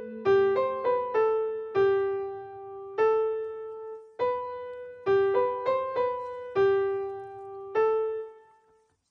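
Solo piano music: a slow melody of single notes struck one at a time and left to ring, the last note fading out near the end.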